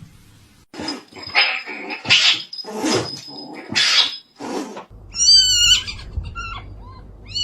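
A dog barking roughly about six times over four seconds, then a cat meowing twice with rising-and-falling calls.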